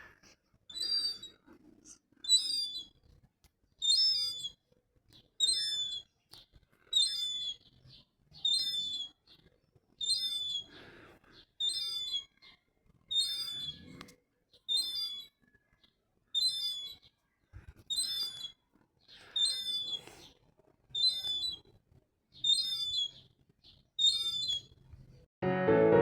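A seagull giving a short, high-pitched call over and over, about once every second and a half. Piano music comes in at the very end.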